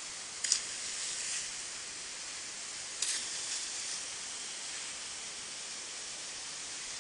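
Steady hiss of river water rushing over a small cascade into a pool, with two brief splashes, one shortly after the start and one about three seconds in.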